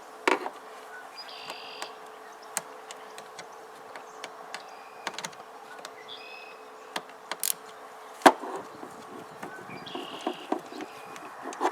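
Scattered metallic clicks and knocks of a wrench working the battery cable terminal nuts, the loudest about eight seconds in. Under them are a steady faint hum and three short high buzzes.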